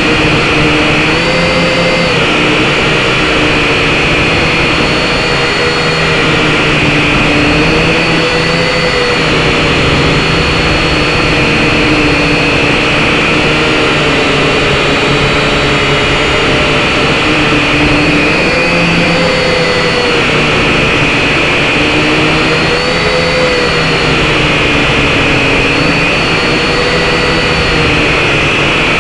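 SYMA X5HC-1 quadcopter's small electric motors and propellers whining close to its onboard microphone. The pitch rises and falls every few seconds as the motors change speed to hold the drone in the air.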